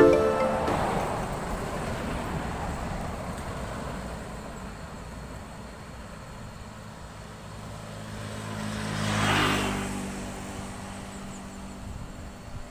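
Highway traffic: a bus driving off, its engine and tyre noise fading over the first few seconds. Then another vehicle passes close, rising and falling about nine and a half seconds in, followed by a steady low engine hum.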